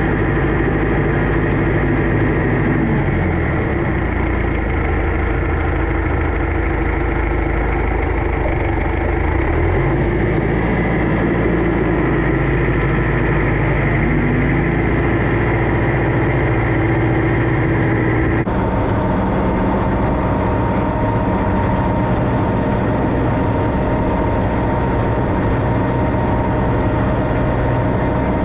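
Tractor engine running steadily, with an abrupt change in its tone about two-thirds of the way through.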